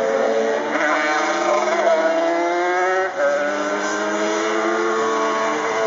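Several two-stroke Yamaha TZ racing motorcycles at high revs under acceleration. Their engine notes climb in pitch and drop back at each upshift, with one note falling away about 3 seconds in.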